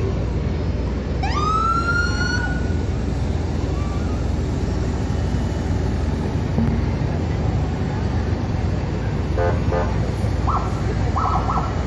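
Steady low rumble of a truck engine passing in a parade, with one rising electronic siren whoop about a second in. Several short, rapid siren chirps sound near the end.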